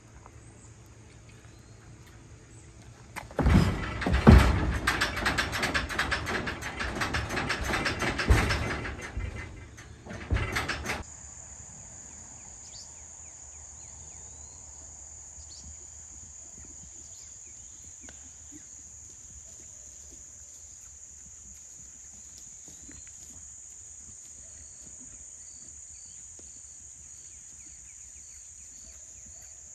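A loud rustling, scraping noise for about seven seconds, starting a few seconds in, then cutting off. After it, a steady high-pitched insect drone runs on, with faint repeated chirps near the end.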